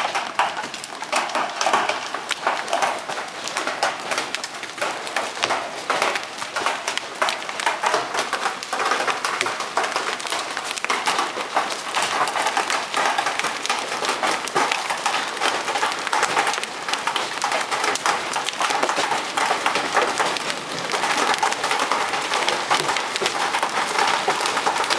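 Large hailstones pelting down hard: a dense, continuous rattle of countless small impacts that gets a little louder near the end.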